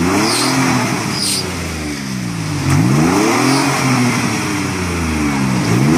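Nissan Xterra's engine revving hard and dropping back, climbing about three times, as the SUV stuck in deep mud tries to drive free.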